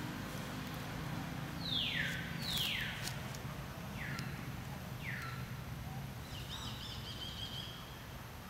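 Bird calling: four clear whistles that each slide steeply downward, the first two loudest, followed near the end by a short wavering trill. A low steady hum runs underneath.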